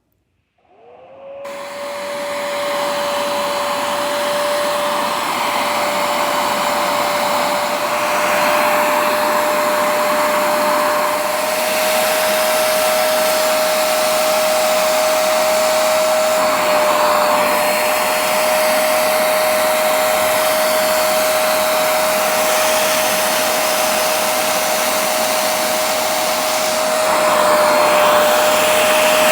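Hoover Spotless portable carpet and upholstery cleaner switched on about a second in: its motor spins up quickly to a steady whine with a rush of suction noise. The noise swells and eases in a few spells as it works.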